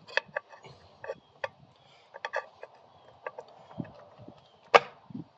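Scattered light clicks and taps of metal engine parts and hand tools being handled, with one sharper knock near the end.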